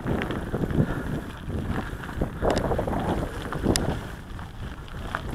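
Wind buffeting the microphone of a camera riding on a moving mountain bike, over tyres rolling on a loose gravel and wood-chip track. A few sharp rattles from the bike, one louder about two-thirds of the way through.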